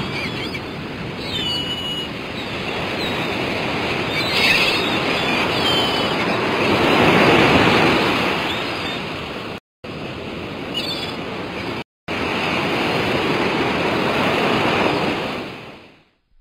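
Sea surf washing in a steady rush that swells to its loudest about seven seconds in. The sound cuts out twice, very briefly, and fades away at the end.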